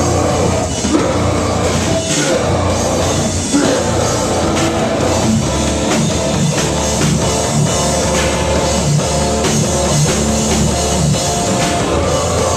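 Live heavy metal band playing loud: distorted electric guitars and bass chugging low chords over a rock drum kit with fast, steady drum hits.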